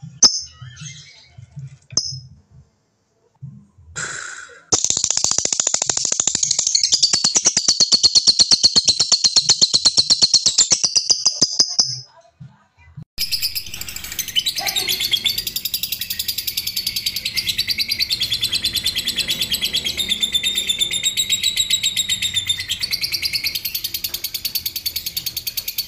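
Lovebirds chattering: a few short chirps, then a long, very fast rattling trill, the ngekek, that runs about seven seconds and breaks off. After a brief gap near the middle, a denser unbroken ngekek trill carries on to the end.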